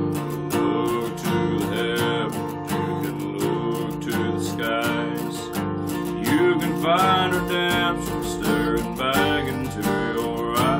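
A man singing a country song to his own strummed acoustic guitar.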